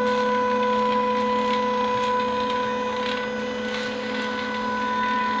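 Steady electric machine hum: one fixed tone with several higher overtones, unchanging throughout, with a few faint ticks over it.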